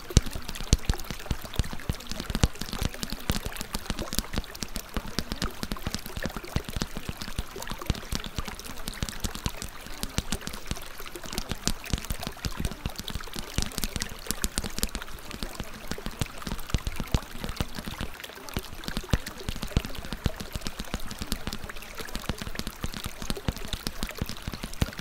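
Steady water ambience, a continuous pouring or trickling wash with a dense patter of small clicks and pops, unchanging throughout.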